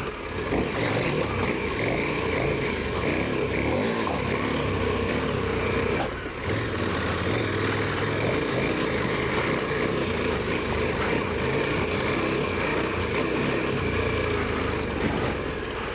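Adventure motorcycle under way at a steady pace: engine running with rushing wind and road noise, briefly dipping about six seconds in.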